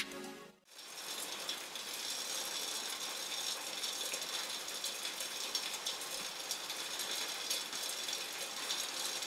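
Aluminium soda can heating over a lit gas burner: a fast, steady crackling and ticking, the sound of the can and its contents heating up.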